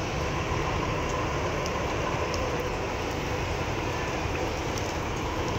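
Rain falling on a wet street as a steady hiss, mixed with a low, even machine hum.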